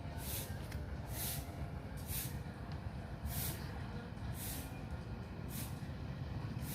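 CC 206 diesel locomotive idling with a steady low rumble, with short hissing puffs of air about once a second.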